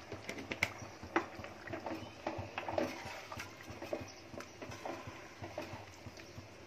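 Spoon stirring a simmering chicken and tomato stew in an aluminium pot: a run of small, irregular clicks and wet plops.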